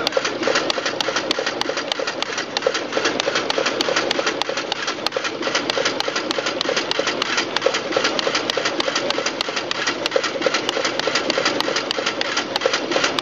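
Duplo business card cutting module running: a steady mechanical whir with rapid, even ticking, several ticks a second, as it cuts sheets into cards and drops them onto the output stacks.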